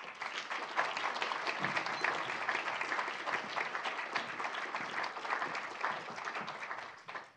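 Audience applauding to welcome a speaker just introduced: dense, steady clapping that fades out near the end.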